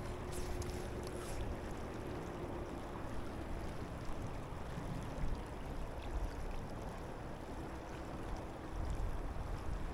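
Steady rush of tailwater river current flowing past, the river running high from raised water.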